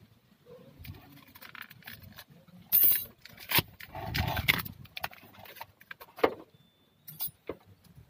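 Car wiring harness being handled: irregular rustling and clacking of wires and plastic connectors, with a louder clatter about three seconds in and a sharp click a little after six seconds.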